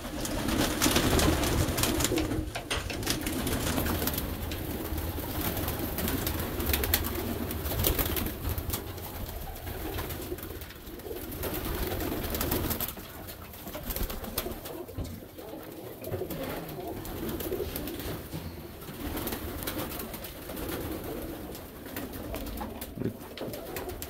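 A loft full of domestic pigeons cooing continuously, with scattered short rustles and knocks, in an enclosed room.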